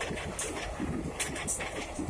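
Passenger train coaches rolling past at speed: a steady rumble of wheels on the rails, with a few short sharp high-pitched clicks, about half a second in and twice past the middle.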